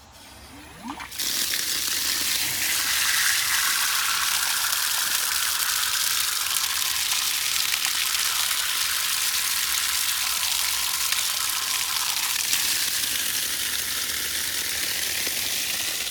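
Water spraying in a steady hissing stream onto cut log rounds, starting about a second in.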